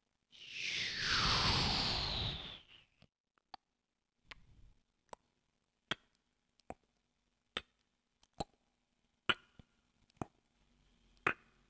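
Sound effects of a cut-out animation: a loud whoosh that falls in pitch for about two and a half seconds, then single sharp ticks at a slow, fairly even pace of roughly one a second, like a ticking clock.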